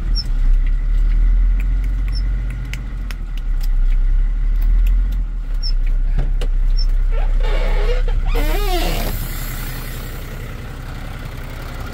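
Truck engine idling, heard from inside the cab, with scattered light clicks. About eight seconds in there is a short burst of rustling and a wavering pitched sound as the cab door is opened.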